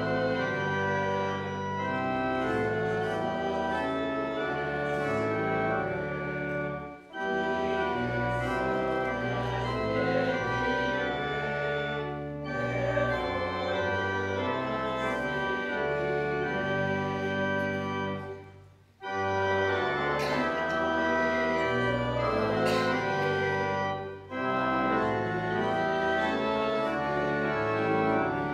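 Church organ playing the opening hymn in sustained chords, with brief pauses between phrases about 7, 19 and 24 seconds in.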